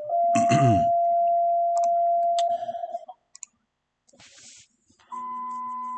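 Steady electronic tones: one long tone that rises slightly in pitch at the start and cuts off after about two and a half seconds, with two sharp clicks over it, then a second, higher and quieter tone starting about five seconds in.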